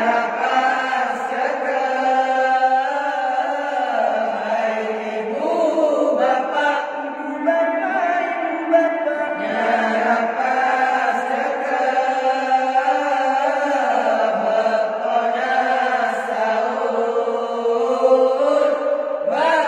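A man's voice chanting an Islamic devotional song through a microphone, in long, held, ornamented melodic lines.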